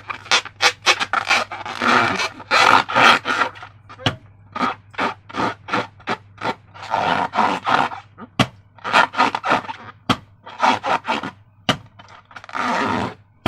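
Slime being squished and stretched: irregular sticky squishing noises coming in bursts, with a couple of sharp clicks.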